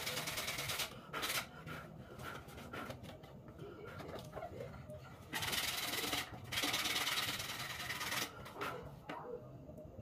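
Sandpaper rubbed by hand on a wooden bird cage, in scratchy sanding strokes: a short burst about a second in, then two long spells of sanding a little past halfway.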